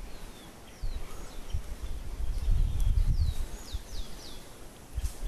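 Birds calling with short downward-sliding whistles, several in quick succession around the middle, over a low rumbling noise that swells and fades.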